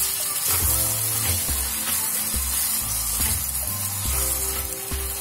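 Turkey berries, onions and tomatoes sizzling in sesame oil in a clay pot as a slotted metal spatula stirs them, with scattered clicks of the spatula against the pot. Background music plays underneath.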